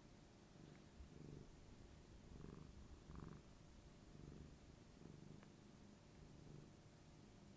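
Tabby cat purring as it rubs its head against a person's bare knee, an affectionate purr. It is a faint, low rumble that swells and eases about once a second with the cat's breathing.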